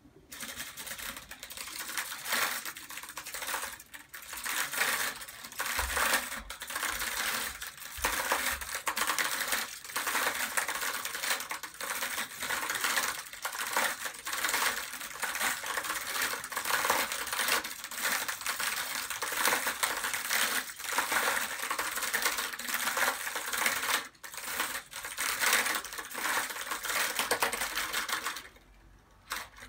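Small hailstones falling fast and hitting hard surfaces: a dense, steady stream of sharp little clicks and ticks. It starts abruptly, eases briefly once, and dies away near the end.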